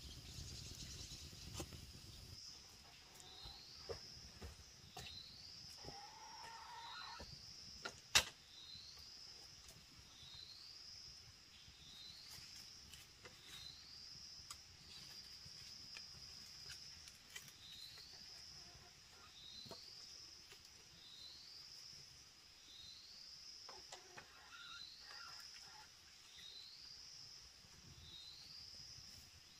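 Quiet forest ambience: a high call that rises in pitch, repeated about once a second over a steady high whine, from an insect or bird. There is a lower rising call twice and one sharp click about eight seconds in.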